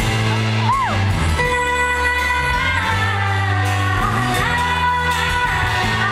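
Live pop band music with singing, echoing in a large hall, with sustained bass notes and held chords.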